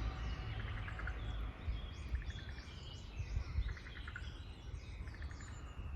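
Several small birds chirping and calling outdoors, in short high notes and quick trills, over a steady low rumble.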